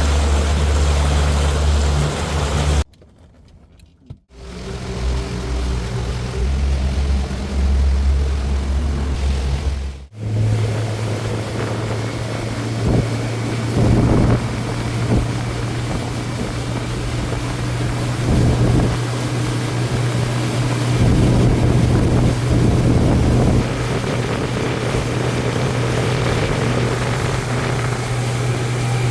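Motorboat engine running with a steady low hum, with wind noise and water rush over it. The sound drops out for about a second and a half about three seconds in, and the hum shifts a little higher after a break about ten seconds in.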